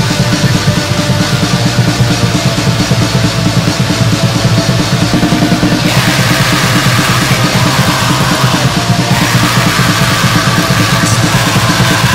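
Raw black metal: rapid, dense drumming under distorted guitars, with a brighter, harsher layer coming in about six seconds in.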